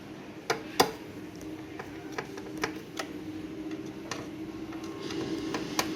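Irregular sharp clicks and light taps of small machine parts and screws being handled during repair, over a steady low hum.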